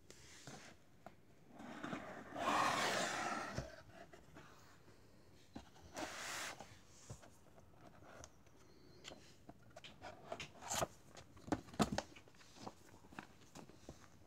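A cardboard box being opened and handled: a longer stretch of cardboard sliding and scraping about two seconds in, another brief one around six seconds, then paper rustling with light taps and clicks as the manual is taken out of the pulp packing tray.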